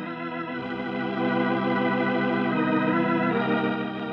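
Organ music bridge: held chords that swell, change about two and a half seconds in, then ease off near the end, marking a scene change in the radio drama.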